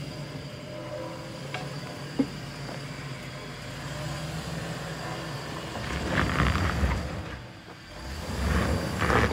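Lifted Chevrolet Suburban's V8 engine running low as it crawls over rocks, with a single sharp knock about two seconds in. Near the end, two louder surges of engine and tyre noise come as it is given gas over the rocks.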